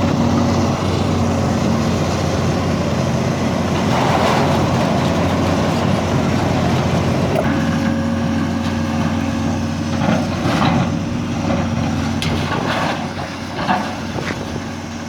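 Truck-mounted crusher running steadily under load as it compacts old air conditioners, its engine drone steady throughout, with a few sharp cracks and crunches in the second half as the units give way.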